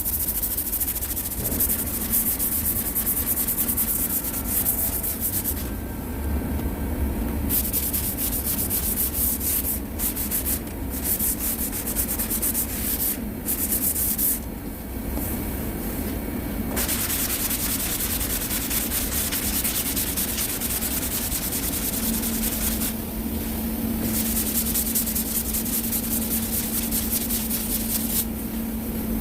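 Hand sanding of cured body filler with a sanding block: sandpaper rasping in long runs of back-and-forth strokes, pausing briefly several times. A steady low hum comes in about two-thirds of the way through.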